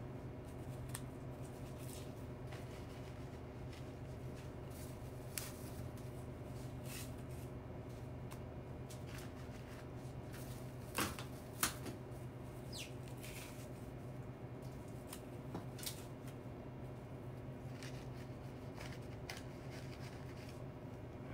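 Foliage stems being handled and stripped: light rustling and crackling of leaves and stalks with scattered sharp clicks, two louder ones about eleven seconds in, over a steady low hum.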